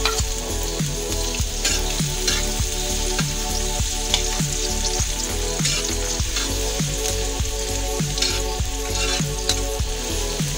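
Minced onion sizzling in hot oil in a metal wok while a metal spatula stirs it, scraping the pan now and then. Background music with a steady beat runs underneath.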